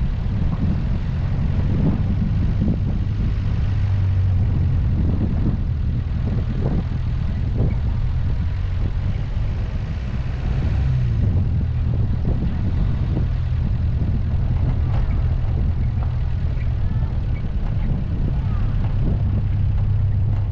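A car's engine and road noise while driving: a steady low drone with a dip in pitch about halfway through, and a few brief knocks from bumps in the road.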